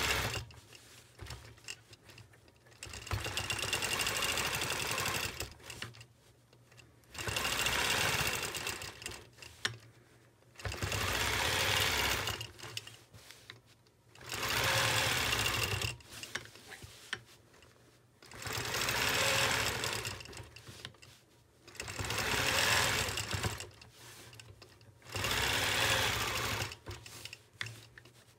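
Longarm quilting machine stitching in short runs of two to three seconds, stopping for about a second between runs, about eight times in all. These are ruler-guided curved stitch lines being sewn one after another along an acrylic circle ruler.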